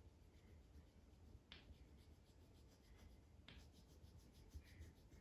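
Very faint scratching of drawing strokes as a snowman is sketched, with two sharper strokes about a second and a half and three and a half seconds in.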